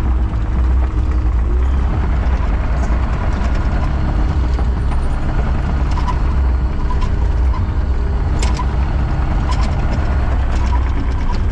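Engine of heavy construction equipment running steadily with a deep hum, with several sharp metallic clicks or knocks scattered over it.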